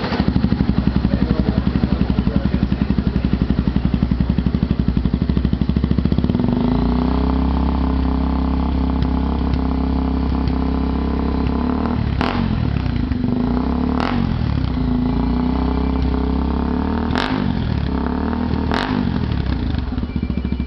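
Honda XRE300's single-cylinder engine running through a Coyote Roncar 2Way sport exhaust tip. It idles with an even pulsing beat, then its note rises and holds steadier about six seconds in. Four quick throttle blips come in the second half, each with a sharp crack.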